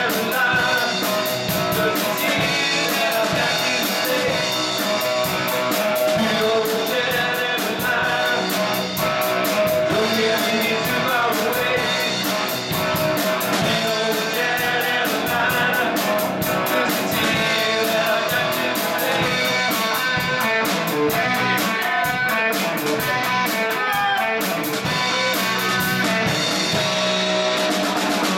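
Live rock band playing: electric guitars, bass guitar and drum kit, with the cymbals keeping a steady fast beat.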